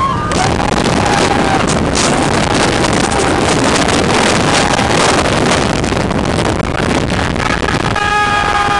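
Wind rushing hard over the microphone as the Steel Dragon roller coaster train runs at speed, with riders' screams. A long held scream rises above the rush near the end.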